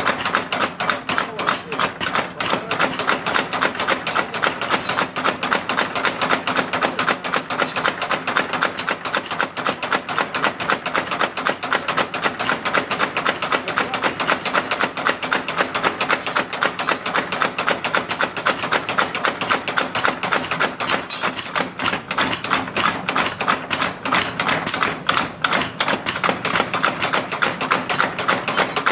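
Rapid, evenly paced hammer blows on hot steel during knife forging, several strikes a second without a break.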